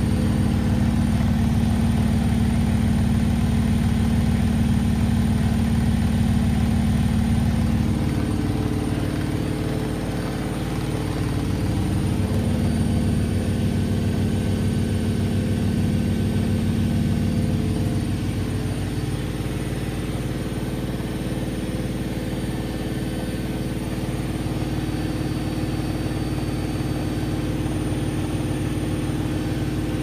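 Bauknecht 6 kg top-loading washing machine spinning, a loud steady drone with a strong low hum. The hum's pitch and loudness shift a couple of times, about eight and eighteen seconds in.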